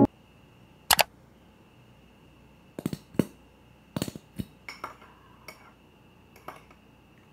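A metal teaspoon clinks against a ceramic tea cup as the tea is stirred, with a few light knocks and clicks from handling a squeeze bottle of honey. The sounds are scattered short clinks, with one sharp knock about a second in.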